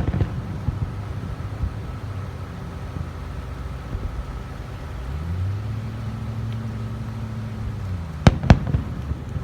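Fireworks going off: scattered crackling pops, then two sharp bangs in quick succession near the end, over a low steady hum.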